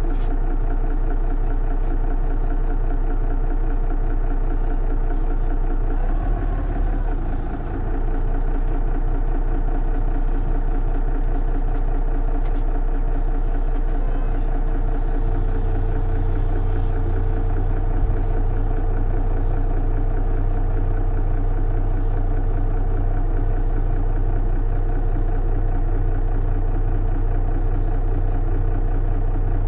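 Mercedes-Benz Citaro city bus's diesel engine running steadily, heard from on board the bus. About fifteen seconds in, the engine note settles into a stronger, steady low hum.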